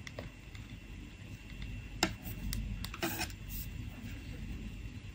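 Knitting needles clicking softly as stitches are worked, with a sharper click about two seconds in and a quick run of clicks about a second later, over a low steady room hum.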